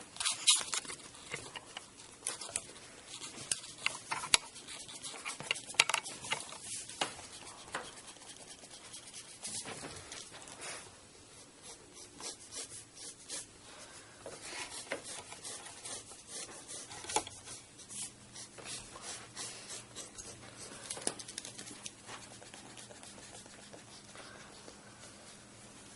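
Pencil scratching on paper in quick, repeated sketching strokes: short scratchy rasps in uneven runs, with some sharper strokes standing out.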